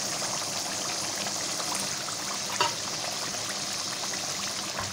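Thick spiced masala gravy bubbling and sizzling in a pan: a steady hiss with small crackling pops.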